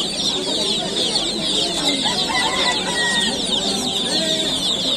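Dense, nonstop peeping from dozens of broiler chicks crowded in a net basket: many short, high, downward cheeps overlapping at once.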